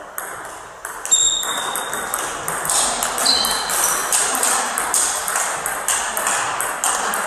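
Table tennis rally: the celluloid-type ball clicking off rubber-faced paddles and bouncing on the table, a quick, irregular run of sharp taps with short high pings. It starts about a second in with the serve and goes on almost to the end.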